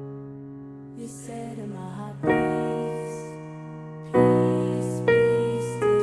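Keyboard playing a worship-song part in an electric-piano voice. A held chord fades out, a few light notes follow, then new chords are struck about four times in the second half, each ringing and slowly fading.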